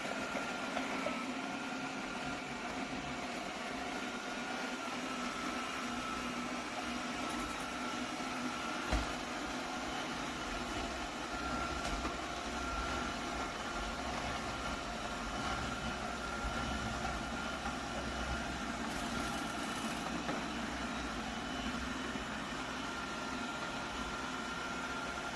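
BPMIO robot vacuum running, its suction motor giving a steady whine over a low hum, with a single knock about nine seconds in.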